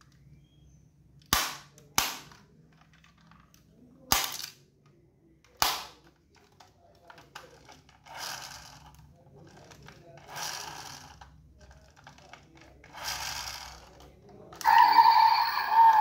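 Four sharp snaps, a few seconds apart, as the opening doors of a diecast Toyota Crown Kluger model SUV are pushed shut one after another, then softer rubbing from the model being handled. Near the end the model's built-in sound module starts a loud electronic car-engine sound effect through its small speaker.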